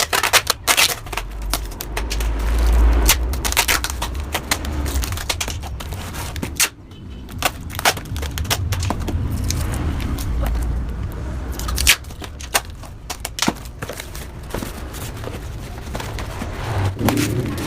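Yamaha RX-King's two-stroke single-cylinder engine running through a freshly hollowed-out exhaust, revved up and let back several times, with many sharp pops; the exhaust has been gutted for a crisp, rasping 'garing ngorok' note.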